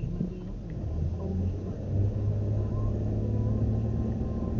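Car engine and road rumble heard from inside the cabin. It is a low steady drone that grows stronger about a second and a half in, as the car picks up.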